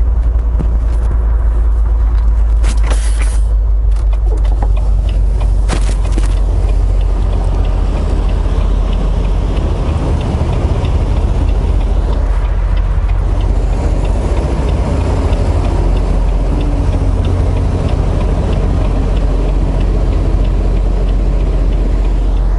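Semi-truck diesel engine running at low speed, heard from inside the cab as a steady low rumble, with a few short clicks in the first six seconds.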